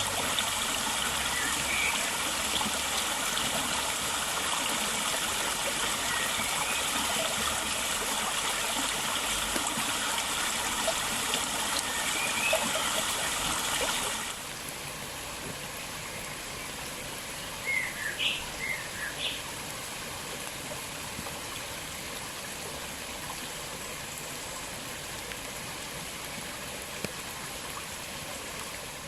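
A small woodland river, the River Rea, running over its bed: a steady rush of flowing water that drops suddenly to a quieter level about halfway through. Songbirds call faintly over it, with a short bright burst of song about two-thirds of the way in.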